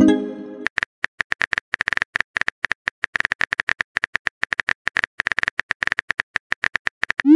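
Simulated phone-keyboard typing from a texting-story app: a quick run of key clicks, several a second, as a message is typed. It opens with a short message-alert chime and ends with a rising whoosh as the message is sent.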